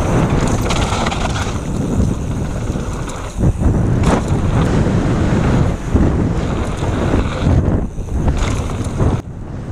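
Wind buffeting the camera microphone and mountain-bike tyres rumbling over a dirt trail during a fast downhill descent, a loud steady rush that dips briefly a few times.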